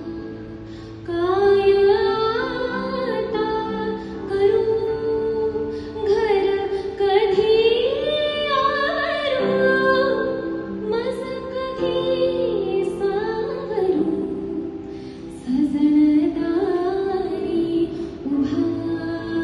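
A young woman singing a Marathi song solo into a microphone, a slow melody with long held, ornamented notes, over sustained electronic keyboard chords.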